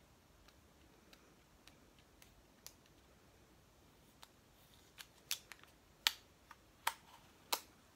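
Fingernails clicking and picking at a small hard plastic item, plausibly the PS2 memory card, while a sticker is peeled off it: scattered faint ticks at first, then sharper, louder clicks in the second half.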